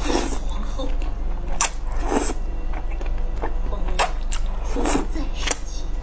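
Close-up eating of thick stir-fried rice noodles: wet slurps as noodles are sucked in, the strongest right at the start and about two seconds in, with shorter chewing and lip-smacking sounds between them.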